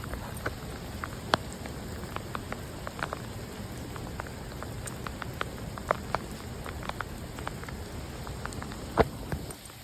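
Heavy rain pouring down: a steady hiss with many sharp drop impacts close by, two of them louder, about a second in and near the end.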